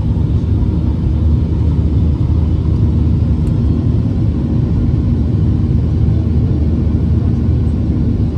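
Jet airliner cabin noise in flight at a window seat over the wing: the engines and airflow make a loud, steady low rumble.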